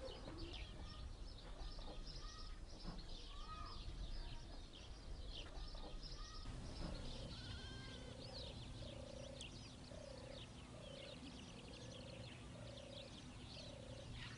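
Open-air rural ambience with many small birds chirping. About halfway through, a low call starts repeating evenly, roughly three calls every two seconds, over a faint steady hum.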